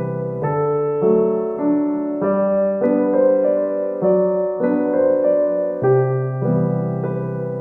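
Background piano music, with held notes and chords changing about every half second.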